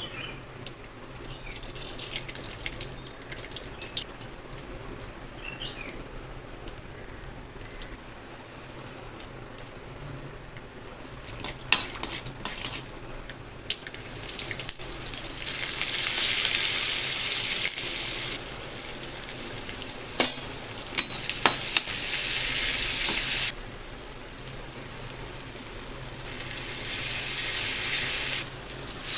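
Tomato chutney cooking: scattered clinks of utensils, then hot oil sizzling in a pan in three spells from about halfway in, each starting and stopping sharply, with stirring and a couple of sharp knocks against the pan.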